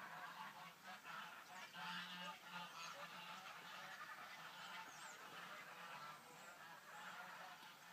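Geese honking faintly, several birds calling over and over with overlapping honks.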